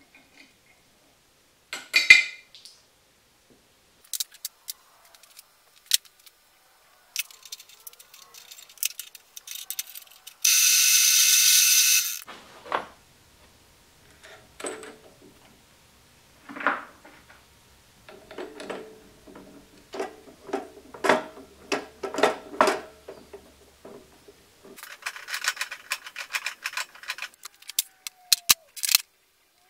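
Tool and metal-part handling at a drill press: scattered clicks, knocks and clinks as parts are clamped in the vise and a bit is fitted into the chuck, with a loud hiss lasting under two seconds about a third of the way in and a busy run of clicks and rustling near the end.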